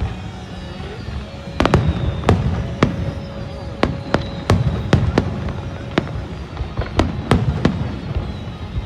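Fireworks display: about a dozen sharp bangs of aerial shells bursting at uneven intervals over a low rumble, starting after a quieter first second and a half.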